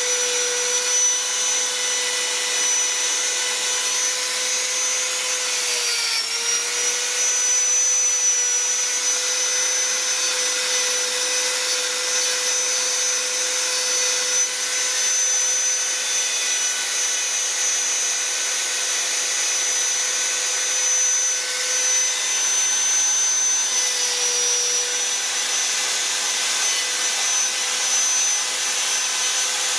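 High-speed rotary carving tool with a conical burr grinding into wood: a steady high motor whine over a rasping grind. The pitch sags briefly about six seconds in and again later, as the burr bites harder into the wood.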